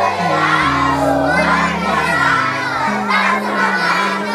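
A crowd of children shouting back together in answer to a greeting, many voices at once, over background music with held low notes.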